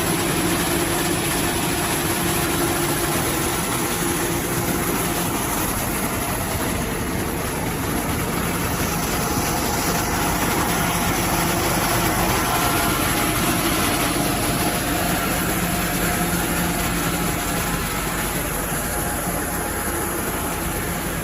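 Diesel engine of a Schwarze A7 Tornado street sweeper truck running steadily, with an even low hum and a constant rushing noise.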